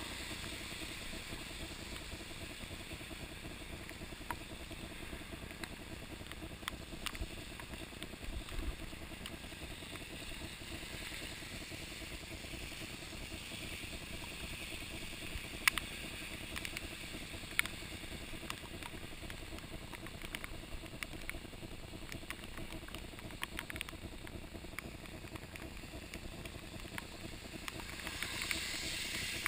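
Mountain bike riding on rain-soaked asphalt: a steady hiss of wet tyres and road spray, with scattered sharp clicks and knocks, two of them louder past the middle.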